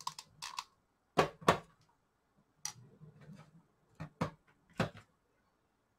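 Short clicks and light knocks from handling a hot glue gun and small foam craft pieces on a work table, scattered through the first five seconds, the loudest about a second and a half in.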